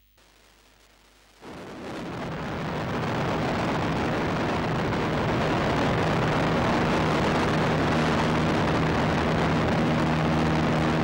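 Wind rush and the droning engine of a small skydiving plane, heard at its open door. It fades in from near silence about a second and a half in, then runs steadily.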